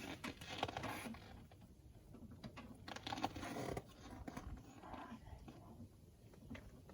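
Rustling and scattered clicks of hands handling gear, busiest in the first few seconds and thinning out towards the end.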